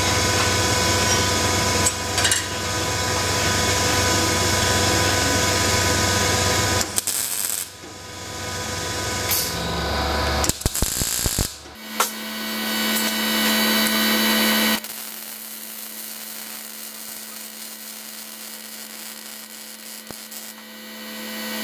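MIG welder arc running on a steel bracket in separate bursts: a long run of about seven seconds at the start, a few short tacks, then further runs, quieter toward the end.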